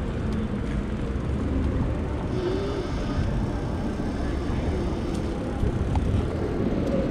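Riding noise from a moving Lectric XP e-bike: steady low rumble of wind on the microphone mixed with tyre noise on pavement.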